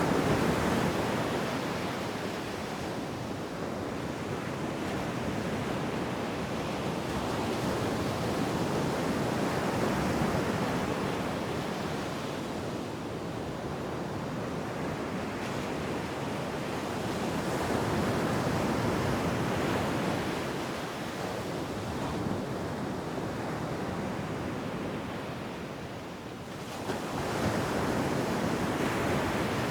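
Ocean surf breaking and washing up a beach. The rushing noise swells and fades about every nine seconds as each wave comes in.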